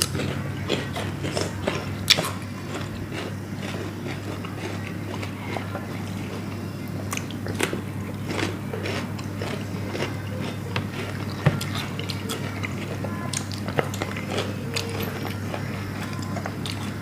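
Close-up biting and chewing of grilled chicken wings and drumsticks, with scattered sharp clicks and smacks, over a steady low hum.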